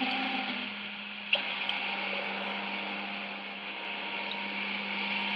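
Steady machine-like hum with an even hiss over it, and one short click a little over a second in.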